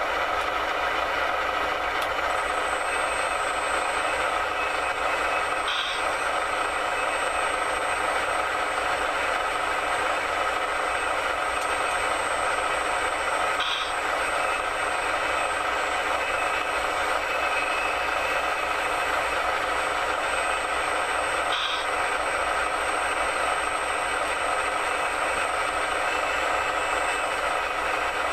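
Radio-controlled construction models running with a steady electric-motor whine and hum. A short high beep comes about every eight seconds.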